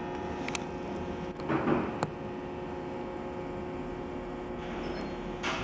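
Auto repair shop background: a steady machine hum with a few sharp metallic clinks, about half a second and two seconds in, and a short noisy swell in between.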